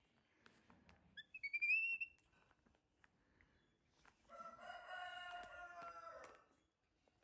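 A rooster crowing once, a call of about two seconds that drops in pitch at the end. Earlier, about a second and a half in, a short, high, rising squeak is louder.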